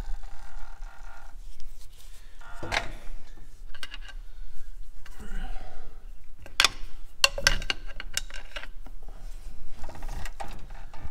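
A steel pry bar working against the crankshaft pulley of a Daihatsu DM950D three-cylinder diesel, turning the engine over by hand: scattered metallic clicks, knocks and scraping, with a quick run of knocks about seven to eight seconds in.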